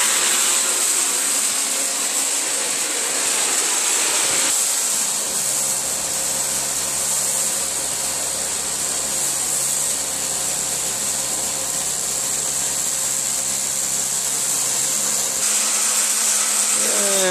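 Vacuum cleaner running steadily, a loud motor whine with a high hiss, its low hum shifting a little now and then.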